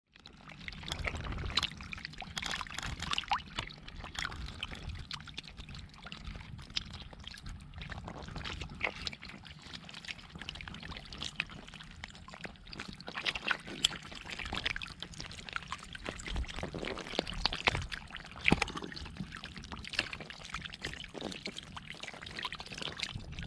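A mass of catfish flopping and writhing in shallow muddy water, making continual irregular wet splashing and slapping, with a louder splash about two-thirds of the way through.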